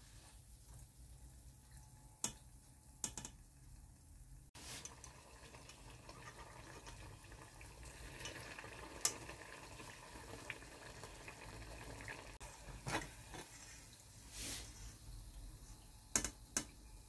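Faint bubbling of hot oil as banana-batter fritters fry in a saucepan, with a handful of short sharp clinks of a metal slotted skimmer against the pan.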